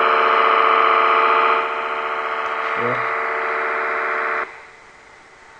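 Royce 639 CB radio's speaker on AM channel 36 giving out a loud, harsh digital buzz made of many steady tones: interference on the channel, which the owner takes for PLC (power-line communication) noise. It cuts off suddenly about four and a half seconds in, leaving faint hiss.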